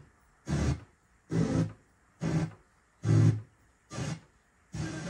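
FM radio through a Technics ST-Z980 tuner heard in short snatches, six times, each cut off by the tuner's muting as it steps from station to station up the band.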